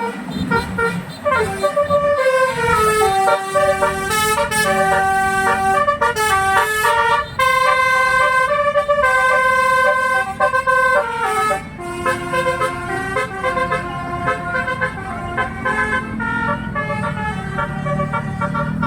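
Basuri telolet bus horn playing a tune: a long run of musical air-horn notes stepping up and down in pitch, with a steady low rumble underneath.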